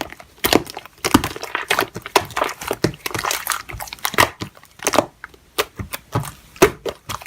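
Slime being squeezed and stretched by hand, giving sticky crackles and pops about twice a second.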